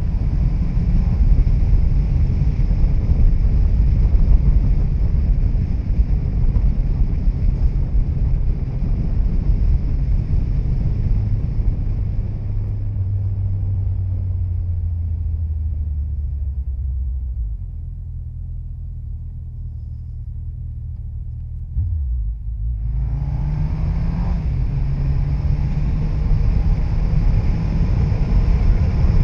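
Suzuki Hayabusa second-generation inline-four with a Yoshimura R-77 exhaust under way, engine note mixed with wind and road rush. The rush fades as the bike slows to a steady low engine note a little past halfway, then comes back suddenly with a climbing engine note as the throttle opens about three quarters through.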